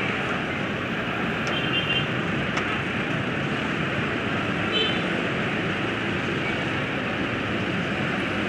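Steady din of heavily congested road traffic: cars, a bus and motorcycles idling and crawling in a jam. Two short high beeps come through, about two and five seconds in.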